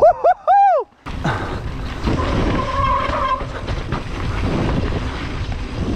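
Mountain bike descending a dirt singletrack: a steady rumble of tyres on dirt, bike rattle and wind on the camera mic. It opens with a rider's short whooping 'oh-oh-ohh', and a brief steady whine sounds about two seconds in.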